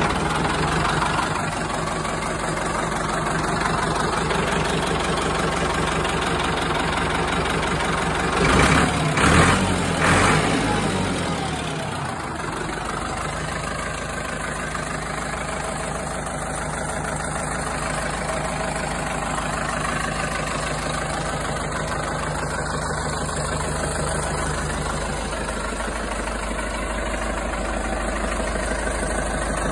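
Ford 6600 tractor's three-cylinder diesel engine running at idle just after starting, with three short louder surges about nine to ten seconds in before it settles back to a steady idle.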